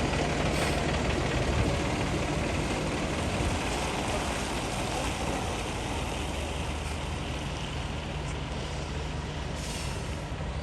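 Diesel engine of a concrete mixer truck running steadily, with a short hiss near the end.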